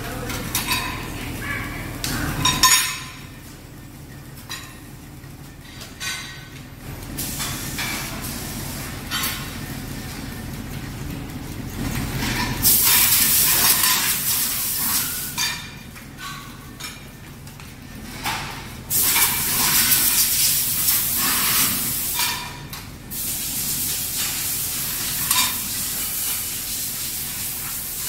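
Metal PVC molds clinking as they are handled, with long stretches of loud hissing, the first starting about 12 seconds in as vapour rises from the molding line.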